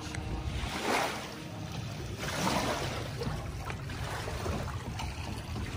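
Wind and lapping-water noise, with a few soft steps and knocks as a person climbs a trailer's boarding ladder onto a pontoon boat's deck, about a second in and again around two and a half seconds in.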